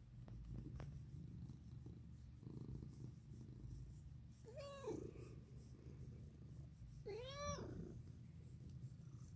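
A black domestic cat purring steadily as its chin is scratched, a sign of contentment. Two short meows that rise and fall in pitch break in about halfway through and again a couple of seconds later.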